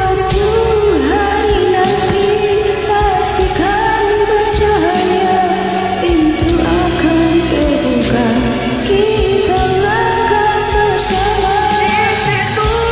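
A woman singing long, wavering notes of a slow ballad over a karaoke backing track with a steady beat.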